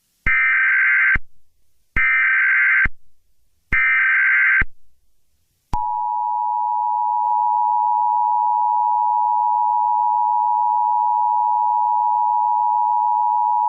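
Emergency Alert System header: three one-second bursts of SAME data tones, a rapid two-pitch digital warble, then the steady two-tone EAS attention signal (853 and 960 Hz) starting about six seconds in and holding.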